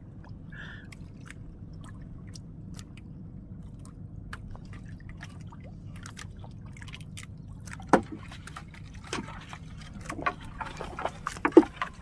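Water sloshing against an outrigger boat's hull, under scattered small clicks and knocks from a gill net and fish being handled, with one sharper knock about eight seconds in.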